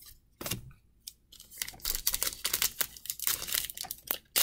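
Foil wrapper of a Panini Legacy football card pack crinkling and tearing as it is ripped open. A few short rustles come first, then a dense run of crackling from about a second and a half in.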